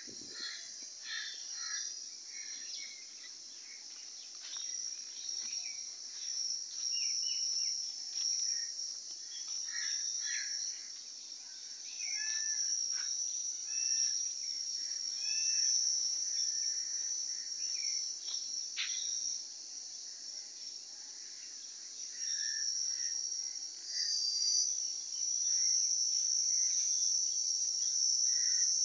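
A steady, high-pitched insect chorus that swells and fades in level, with many short bird chirps and calls scattered over it.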